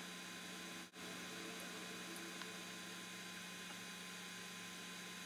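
Faint, steady electrical hum with a light hiss, cutting out briefly about a second in; no voice or other event stands out.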